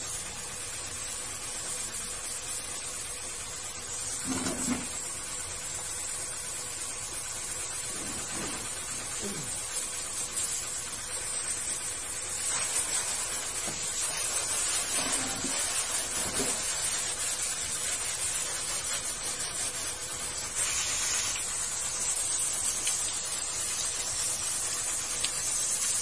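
Water jet from a hose spray nozzle hissing steadily as it washes an air conditioner's coils and housing.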